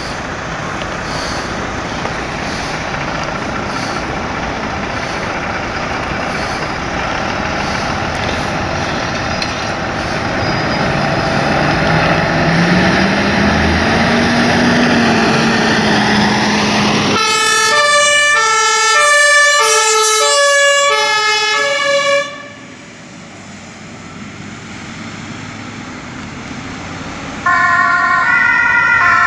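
Emergency vehicles' diesel engines running as they move off, with one engine's pitch rising and then holding. About 17 seconds in, a two-tone compressed-air siren (German Martinshorn) sounds for about five seconds and stops abruptly. Near the end a second, higher two-tone siren starts.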